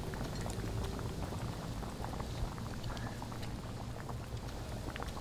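Steady low background rumble with scattered faint clicks of chopsticks and tableware at a restaurant table.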